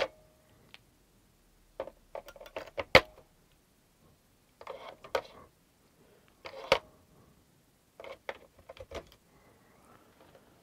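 AA rechargeable batteries clicking and clacking as they are pressed into a plastic battery compartment, with the spare cells clinking together in the hand. The clicks come in several short bunches a second or two apart, the loudest about three seconds in.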